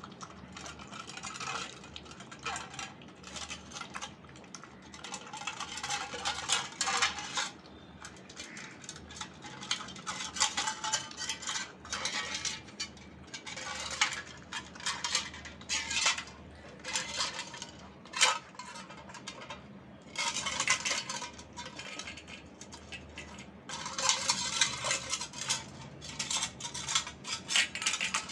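Labrador puppy lapping milk fast from a stainless steel bowl: rapid wet laps with clinks of the metal bowl, coming in bursts of a few seconds with short pauses between.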